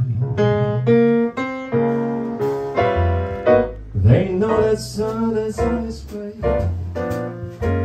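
Grand piano and upright bass playing a slow jazz ballad, with the singer's voice coming in briefly about halfway through.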